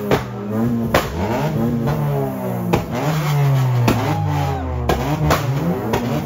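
Vehicle engines revved over and over, their pitch climbing and falling again and again with more than one engine at once, with sharp cracks scattered between the revs.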